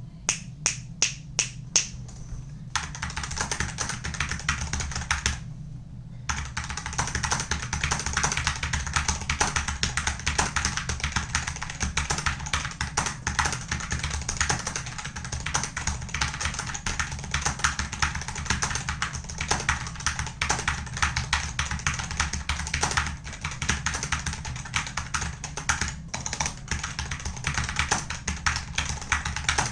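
Typing on a stock Wooting One optical-switch keyboard: unlubed switches and an undampened case with no foam. It opens with single key presses, about four clicks a second, then goes into fast continuous typing with a brief pause around six seconds in.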